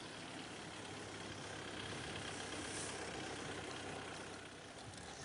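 Faint, steady running of a motor vehicle's engine mixed with wind and road noise.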